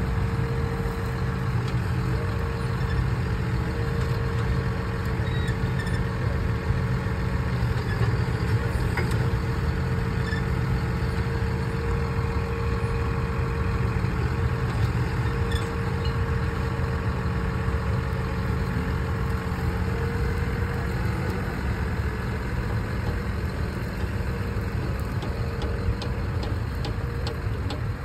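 John Deere 6155R tractor's six-cylinder diesel running steadily, with a steady whine above the engine note.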